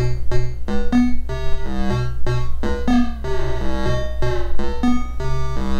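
Short synth bloops played through a PT2399 chip delay set to a very short delay time, smearing the notes into a flanger-chorus sound. The notes come in a quick repeating run over a steady low hum.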